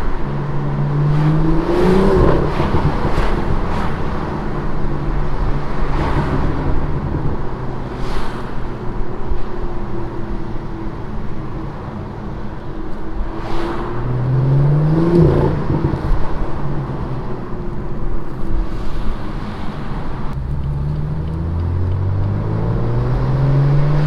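BMW M2 (F87) with its 3.0-litre turbocharged N55 straight-six and an aftermarket Bob Williams exhaust, heard from the cabin with the windows down. The exhaust note rises in pitch on short accelerations about two seconds in, around fourteen seconds and again from about twenty seconds, falling back to a steady cruise between them.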